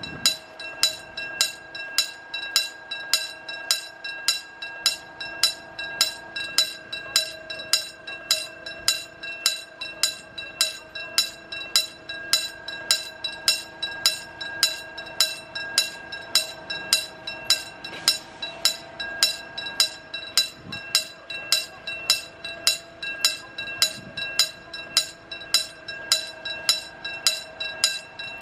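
Railway level-crossing warning bell ringing steadily, about two strikes a second, as a Korail Class 311000 flat-front electric train pulls away from the station toward the crossing. The train itself is faint underneath.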